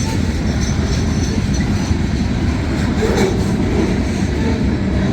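Freight train cars rolling past at about 20–25 mph: a steady rumble of steel wheels on the rails.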